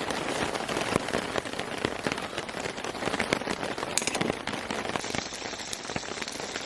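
Rain falling steadily, a dense patter with many sharp individual drop ticks.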